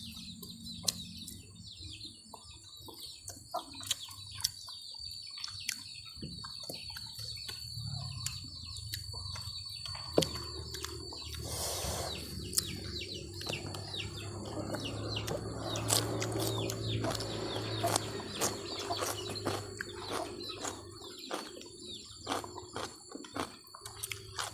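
Close eating sounds: many small clicks and smacks of chewing and of hands handling food. Behind them, birds chirp and chickens cluck, and a low hum swells and fades in the middle.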